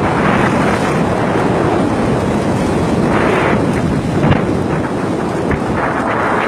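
Strong wind blowing across the microphone over rough open sea, with waves washing around a floating fishing raft. There are two louder rushes, about halfway through and near the end.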